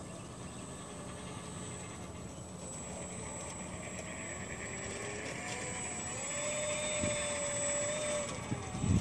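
Electric motor and propeller of a ParkZone Focke-Wulf 190A-8 RC model plane whining in flight, growing louder and shifting in pitch with several tones gliding up and down. A few low thumps come right at the end.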